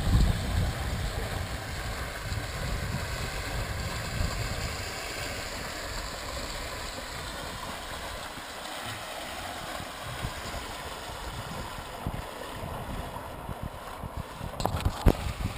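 Water rushing along a sailboat's hull under sail, a steady hiss, with wind buffeting the microphone in low rumbling gusts that are strongest at first. A couple of sharp knocks near the end.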